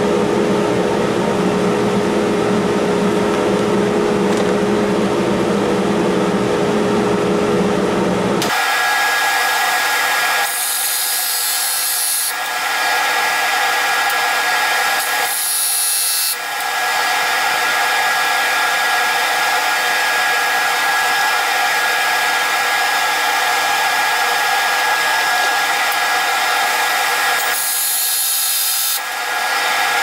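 Wood lathe running steadily with an even hum. About a third of the way in, the sound jumps to a higher, brighter whine at about four times the pitch: the same machine played back at four times speed.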